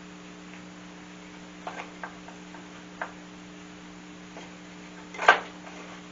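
Irregular light clicks and taps of small metal shop parts being handled, with one louder sharp knock about five seconds in, over a steady low hum.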